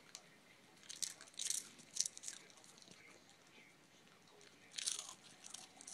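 Small dog chewing and crunching something hard, in a few separate crisp crunches: clusters about one to two seconds in and again near five seconds.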